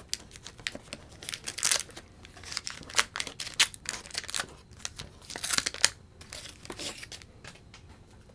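Wax-paper wrapper of a 1989 Donruss baseball card pack being torn open and crinkled, in irregular crackling bursts that die down about six seconds in.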